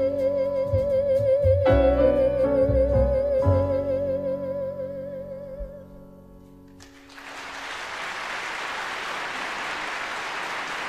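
A jazz singer's voice holds a long final note with wide vibrato over the band's sustained closing chords, and the music fades out. About seven seconds in, steady audience applause begins.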